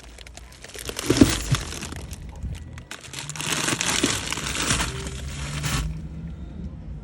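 Rustling and crinkling handling noise in two stretches, one starting about a second in and a longer one from about three to six seconds in.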